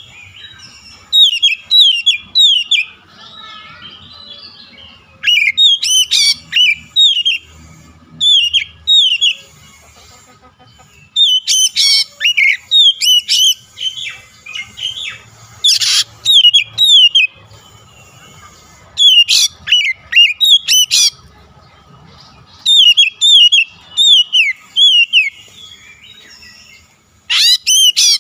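Oriental magpie-robin (kacer) in full song: loud phrases of rapid, repeated down-slurred whistles, each lasting a second or two, broken by short pauses.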